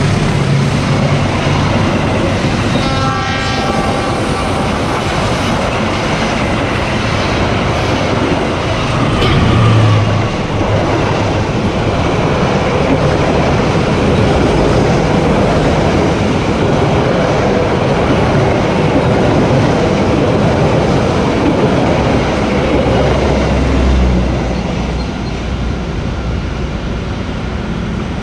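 Two executive passenger trains, the Argo Sindoro and the Argo Bromo Anggrek, passing close on adjacent tracks. Their coaches make a steady loud rumble and clatter, a train horn sounds briefly about three seconds in, and the noise falls off near the end as the last coaches clear.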